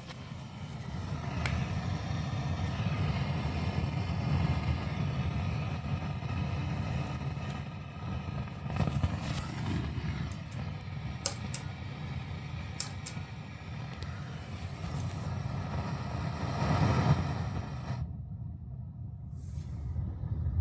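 Marshall DSL40CR valve guitar combo amplifier putting out an unwanted noise fault: a steady low rumbling hiss that swells and fades, with a few sharp clicks in the middle. About 18 seconds in, the higher hiss drops away and the low rumble carries on.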